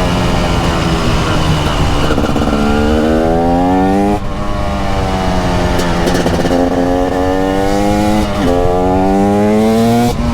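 TM SMR 300 supermoto's 300cc single-cylinder two-stroke engine under hard acceleration: its pitch rises steadily three times, each time dropping off abruptly.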